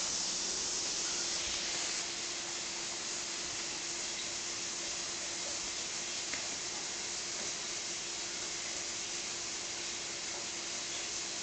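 Steady background hiss with a faint steady hum under it and no distinct sounds: room tone.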